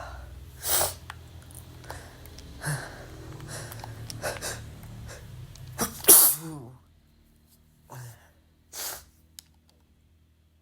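A person sneezing several times in a row. The loudest and longest sneeze comes about six seconds in and trails off in a falling voice.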